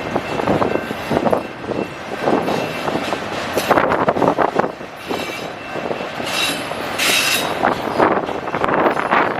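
Autorack freight cars rolling past on the rails with an uneven rumbling clatter of wheels on track. A high wheel squeal rises briefly about two-thirds of the way through.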